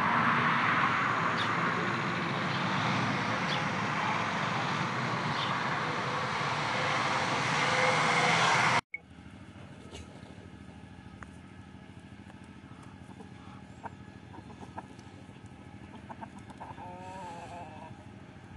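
A loud, steady rushing noise that cuts off suddenly about nine seconds in. After it comes quiet barnyard ambience with a few faint clicks and a short wavering chicken call near the end.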